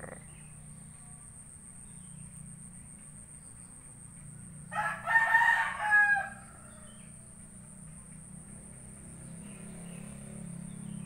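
A rooster crowing once, a single drawn-out call of about a second and a half that falls in pitch at the end, about five seconds in.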